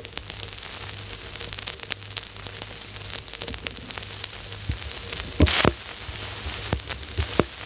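Vinyl record surface noise: a steady crackle of small pops and hiss over a low hum, with a louder double knock about five and a half seconds in, before the music starts.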